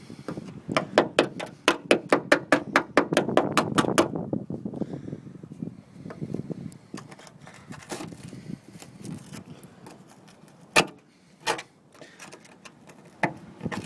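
A tool tapping rapidly on the rusted wheel-arch metal of a Ford Capri as the rot is dug out: about six sharp strikes a second for some three seconds, then a few single knocks near the end.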